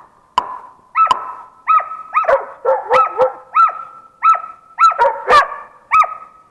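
Laika hunting dogs barking steadily up a tree at a shot marten caught on a branch above them. Short, sharp barks come about two a second, with two dogs overlapping at times.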